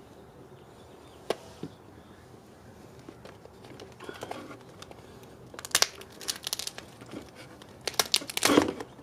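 Cooked California pink crab being broken apart by hand: its shell crackles and legs snap off in two bursts of sharp cracks, about halfway through and near the end, the second the louder. A single click comes about a second in.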